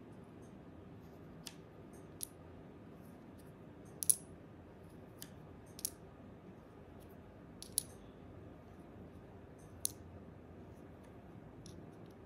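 Small green unit tiles of a Montessori stamp game clicking against each other and the table as they are picked up one by one into a palm, about six or seven sharp clicks at irregular intervals, the loudest about four seconds in.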